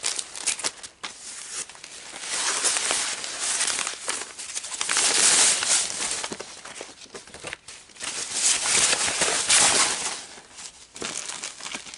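Packaging crinkling and rustling as it is handled by hand, swelling and fading in several waves of a second or two each.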